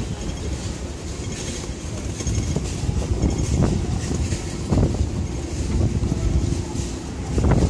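Low rumble of city street traffic and wind on a phone microphone, carried by a walking camera, with a few louder thumps and swells.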